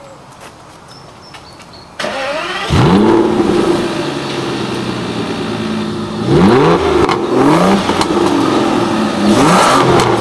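Aston Martin DB9's V12 engine starting about two seconds in, catching with a rising flare of revs and settling to a steady idle, then revved in quick blips of the throttle a few seconds later and again near the end.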